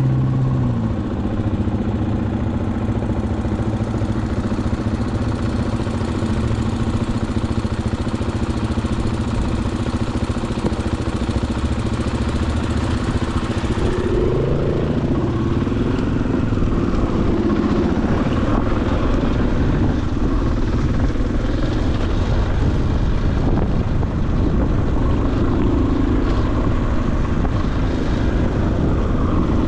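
Off-road motorcycle engine running at low, steady revs, rising briefly about halfway through.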